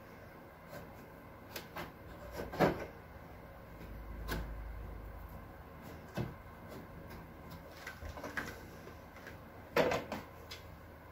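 Scattered knocks and clicks from the parts of an air purifier being handled during cleaning, with two louder knocks about two and a half seconds in and near the end.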